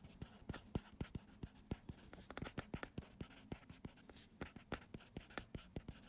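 Stylus tip tapping on a tablet's glass screen while handwriting: a quick, irregular run of faint clicks, several a second.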